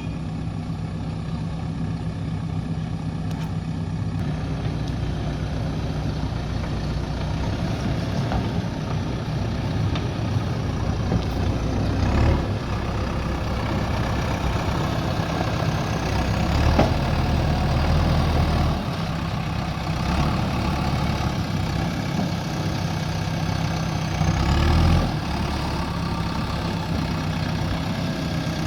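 Diesel engine of a JCB 3DX backhoe loader running steadily at working revs, surging briefly a few times as it takes load.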